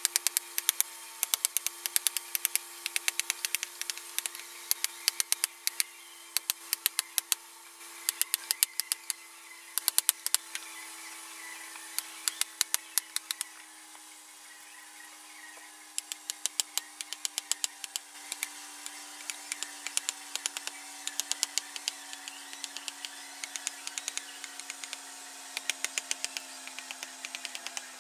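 A mallet rapidly tapping a wooden-handled chisel as it cuts into a curved wooden leg, several sharp knocks a second in runs, with a pause of about two seconds midway. A steady hum that slowly sinks in pitch lies underneath.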